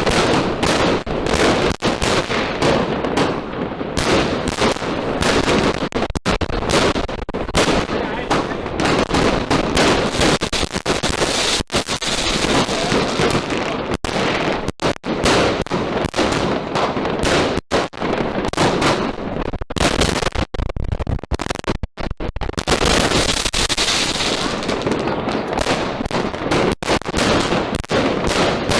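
A 144-shot, 25 mm firework compound cake firing a rapid barrage, its launches and bursts running together into a continuous din with only a few momentary gaps.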